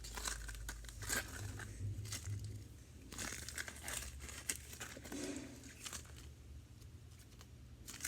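Homemade balloon stress balls being handled and squeezed: irregular crinkling and rustling, quieter in the last second or so.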